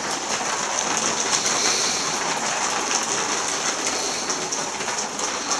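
Rubber-band-powered propeller car running on a tether: the wound-up propeller whirring steadily as the car rolls around on a vinyl floor.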